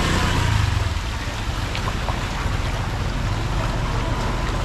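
Traffic on a flooded road: a low engine rumble in about the first second as a vehicle goes by, then a steady rush of water noise.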